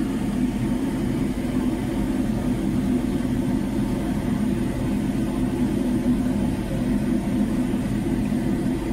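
An engine aboard the boat running steadily, a constant low drone with no change in speed.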